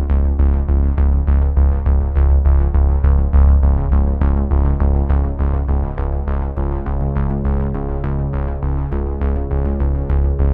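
Background electronic music: synthesizer notes repeating quickly, about four to five a second, over a steady low bass.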